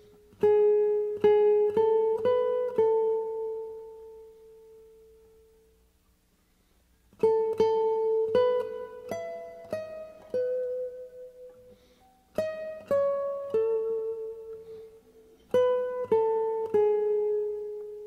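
Background music: a slow, gentle melody of single plucked notes on a plucked string instrument, played in short phrases of a few notes that ring out and fade, with brief pauses between phrases.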